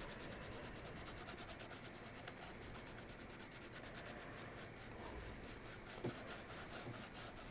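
Faint, quick back-and-forth scratching of toothbrush bristles scrubbing the solder side of a circuit board with alcohol, several strokes a second, to clean the board.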